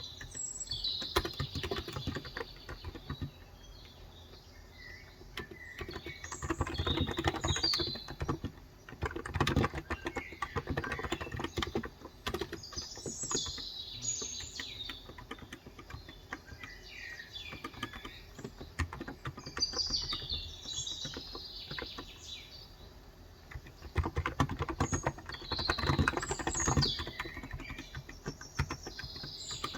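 Typing on a Cox Endeavor electrostatic-capacitive (Topre-style) keyboard with 35 g switches: quick runs of soft keystrokes with short pauses between. Birds chirp over the typing.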